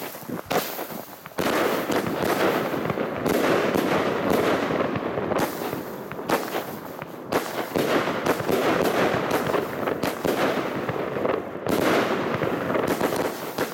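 Funke 'Blitzgewitter' 36-shot firework cake firing: a few separate shots, then from about a second and a half in a dense, near-continuous barrage of launches and bursts in very quick succession, with the crackle of strobing star bouquets overhead.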